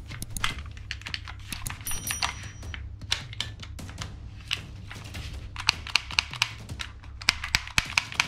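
Black plastic toy pistol being handled, its parts clicking and clattering, with a quick run of sharp clicks in the second half.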